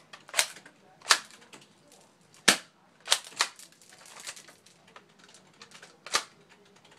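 Plastic spring airsoft shotgun's action being worked by hand: about six sharp plastic clacks, unevenly spaced, two of them close together. The gun is jammed and not firing properly.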